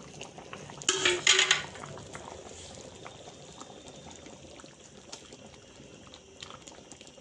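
Thick chickpea curry bubbling at a simmer in an open pan, with a ladle stirring through it and small clicks of the ladle against the pan. A brief louder hiss about a second in.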